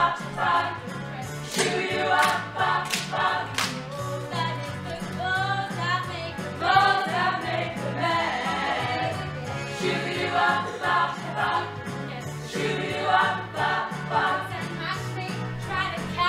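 A cast singing a musical theatre number together over accompanying music with a steady, pulsing bass line. A few sharp hits sound about two to four seconds in.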